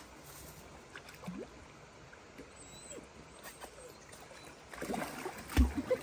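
Dalmatians wading and pawing in shallow river water: small splashes and sloshing, with a louder splash and a heavy thump near the end.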